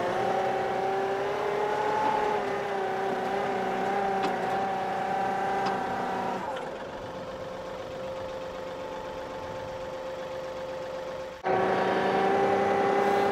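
John Deere 2038R compact tractor's three-cylinder diesel engine running steadily in low range as its loader works a pile of soft dirt. The engine note dips and quietens about halfway through, then turns abruptly louder near the end.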